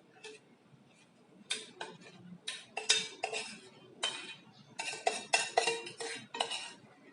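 Metal utensil clinking and scraping against a dish in quick, irregular strokes, starting about a second and a half in, as the noodles are mixed.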